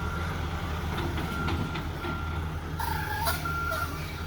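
A heavy truck's reversing alarm beeps at an even pace over the steady low running of its diesel engine as it is manoeuvred slowly. A brief squeal with a hiss comes about three seconds in.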